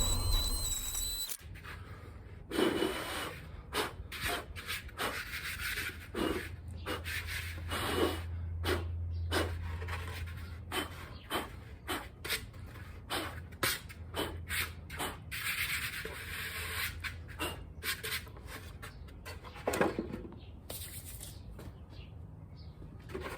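Black and Decker mouse sander sanding a 3D-printed plastic helmet, in irregular passes over a low steady hum.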